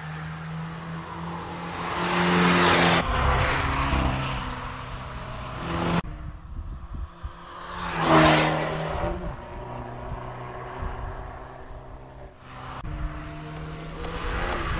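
Abarth F595's 1.4-litre turbocharged four-cylinder T-jet engine running as the car is driven on a racetrack, its note swelling as it passes close, loudest about two seconds in and again about eight seconds in. The sound jumps abruptly several times between passes.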